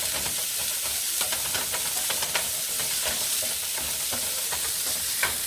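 Chopped onion, mushrooms and garlic sizzling in olive oil in a pan, with scattered light clicks and scrapes of stirring.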